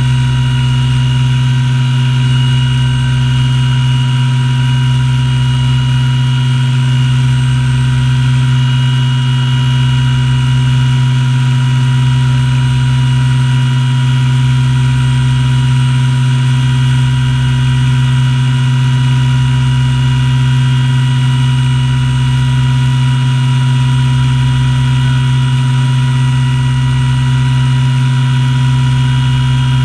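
MD500 helicopter running on the ground with its rotor turning, heard from inside the cabin. A loud steady hum carries a fainter high whine from the turbine, with a low pulsing underneath; the pitch does not change.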